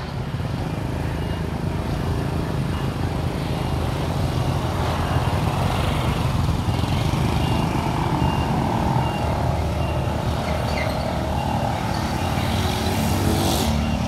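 Steady engine rumble of motorbikes and street traffic, with a faint high beep repeating through the middle and a short hiss near the end.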